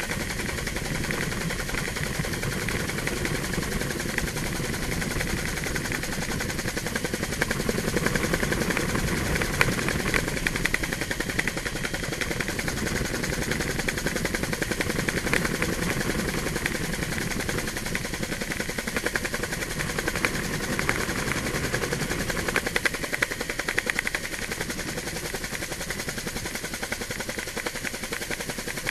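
Helicopter in flight heard from on board: a steady, rapid rotor chop with engine noise.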